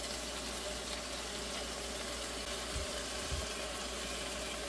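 Chopped vegetables sizzling in a frying pan as they stir-fry: a steady, even hiss.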